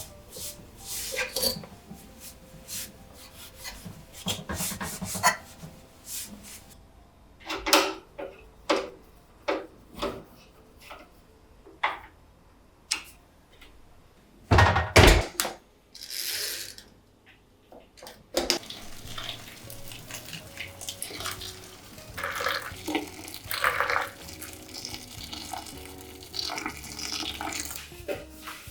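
Washing up at a kitchen sink: dishes and utensils knocking and clinking, with a tap running steadily through much of the second half.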